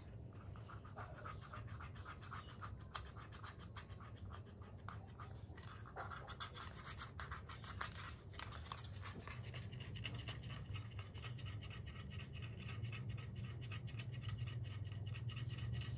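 Faint, rapid scratchy rubbing of an eraser wiping a drawing off a card.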